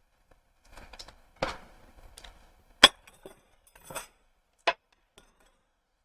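A metal spoon clicking and knocking against a small ice cream tub while the ice cream is scooped and eaten. There are a few separate sharp knocks, the loudest about three seconds in.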